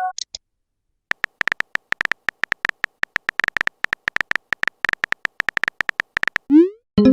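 Keyboard typing click sound effect: a quick, irregular run of short clicks as a chat message is typed. Near the end a short rising pop is followed by a ringing notification chime.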